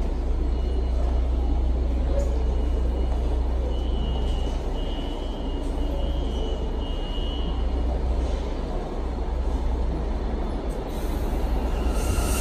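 R179 subway train standing at the platform: a steady low hum and a noisy hiss of a stopped train, with faint high tones and some voices. Right at the end a higher whine sets in.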